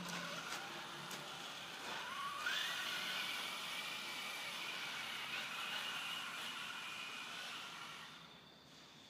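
Savage radio-controlled monster truck accelerating away across a dirt yard. Its motor whine rises in pitch about two seconds in, holds high and steady, then fades as the truck gets farther off near the end.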